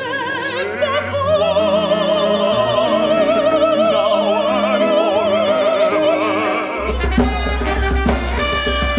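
A soprano sings a long high note with wide vibrato over an orchestra, closing an operatic duet. About seven seconds in, it cuts abruptly to lively music with drums and a strong bass line.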